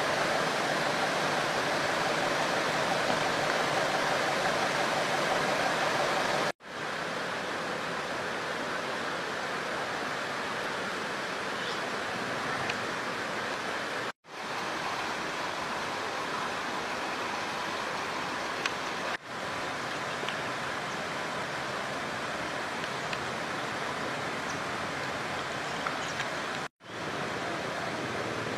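Steady, even rushing noise like running water, with no voices. It breaks off abruptly and starts again three times.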